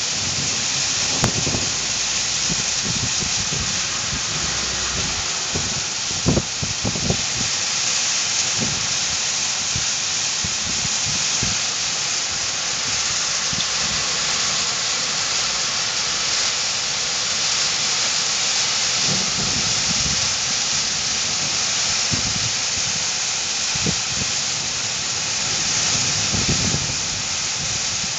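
Heavy downpour of rain and hail in a thunderstorm, a steady dense hiss. Short low rumbling bursts come now and then, several of them around a quarter of the way in and again near the end.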